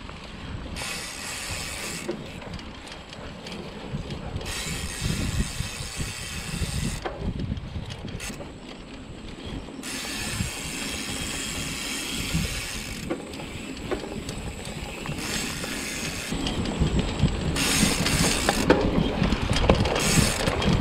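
Mountain bike ridden on a dirt trail: the rear hub's freewheel ratchet buzzes in stretches of a few seconds while the rider coasts. Under it runs a constant rattle and knocking of the bike over rough ground, getting louder near the end.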